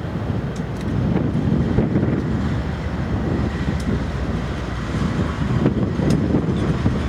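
Wind buffeting the microphone over the low rumble of diesel freight locomotives moving along the track.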